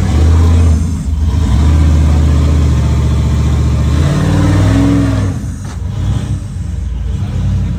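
Rock-crawler buggy's engine revving hard as it climbs a rock ledge under load: a short burst, a brief dip about a second in, then a long sustained high rev whose pitch wavers and falls around four to five seconds in, before the engine drops to a lower, rougher run.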